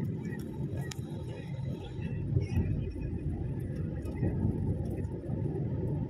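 Steady low road and engine rumble of a car being driven, heard from inside the cabin, with a single short click about a second in.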